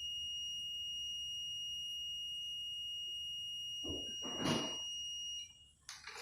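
Continuity tester beeping a steady high-pitched tone that starts suddenly and cuts off after about five and a half seconds, showing a closed circuit between the probes on the compressor terminals. A short scraping thump about four seconds in.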